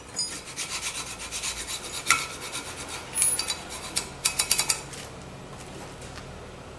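Hand file scraping rust off a steel brake caliper bracket in rapid, even strokes with a few sharper metal clicks, stopping about five seconds in.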